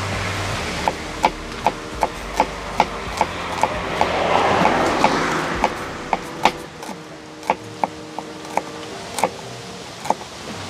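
Kitchen knife chopping scallion on a plastic cutting board: steady knocks about two or three a second, turning slower and uneven in the second half. A rushing noise swells and fades in the middle.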